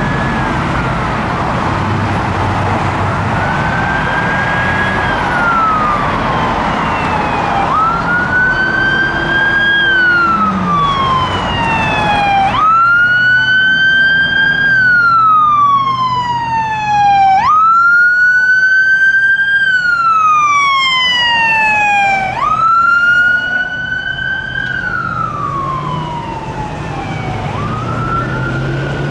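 Fire truck siren wailing, each cycle rising quickly and then falling slowly over about five seconds, six times over. It grows loudest in the middle as the truck comes close and passes, then eases off, with road traffic running underneath.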